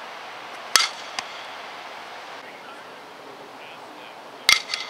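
Two softball bat-on-ball hits. One sharp crack comes about a second in, and another comes near the end, followed by a few quick smaller knocks.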